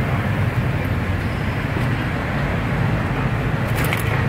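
Steady low mechanical hum over background noise, with a few light clicks near the end.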